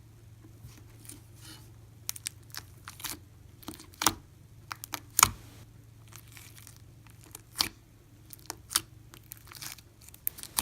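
Homemade slime full of slushy beads and foam beads being squeezed and stretched by hand, giving irregular sharp pops and crackles, the loudest about four and five seconds in.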